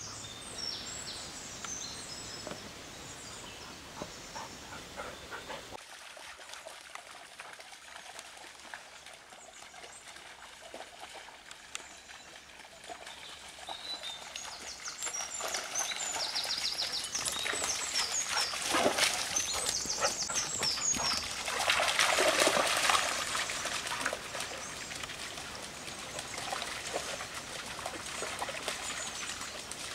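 Shallow stream trickling over stones as dogs wade and splash through it. The splashing is loudest about two-thirds of the way through.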